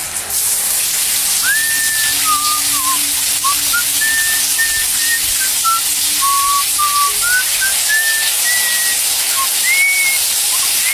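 A whistled tune of short gliding notes, high and thin, starting about a second and a half in, over a steady hiss.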